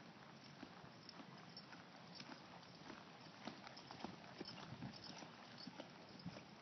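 Faint hoofbeats of a two-year-old horse ridden on soft arena dirt: irregular dull thuds, a little louder in the second half.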